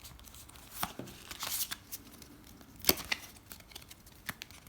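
Foil booster-pack wrapper crinkling and tearing open, with scattered rustles and clicks of cards being handled and a sharp snap about three seconds in.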